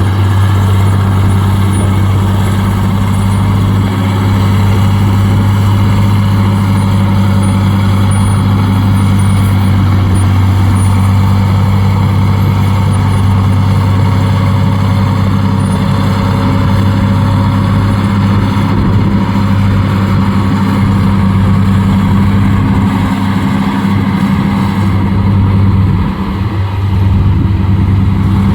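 Heavy diesel engine running at a steady speed, a deep constant drone, with a brief drop in level near the end.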